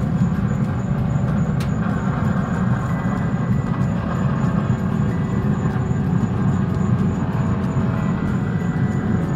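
Grill running with a steady low rumble, with a few faint ticks over it as the fish goes on the grate.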